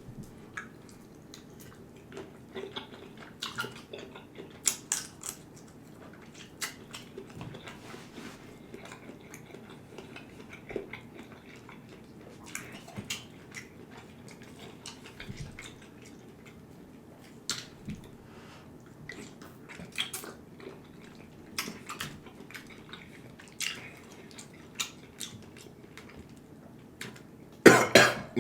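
Close-miked eating of a seafood boil: wet chewing, lip smacks and scattered clicks at an irregular pace, with a louder burst of noise near the end.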